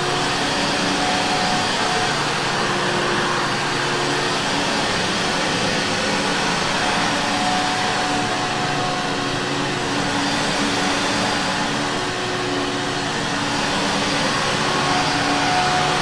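Vintage Hoover Caddy upright vacuum cleaner running steadily as it is pushed over carpet: an even rush of air with a faint motor whine.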